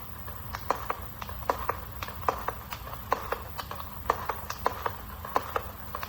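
600-shot professional firework cake firing, a rapid irregular string of sharp pops and bangs, about three or four a second, as shells launch and break.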